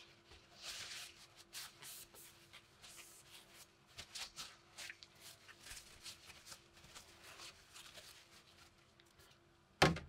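Paper shop towel rubbing and rustling along a steel spike bayonet as it is wiped down, in short irregular strokes. Near the end, a single sharp clatter as the bayonet is set down in a plastic tray.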